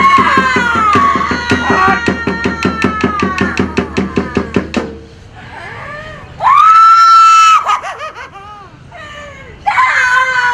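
A performer screaming and wailing while being beaten on stage, in a high voice broken into rapid sobbing pulses. The wail cuts off about halfway through. Then comes one long, held, high scream, and another cry starts near the end.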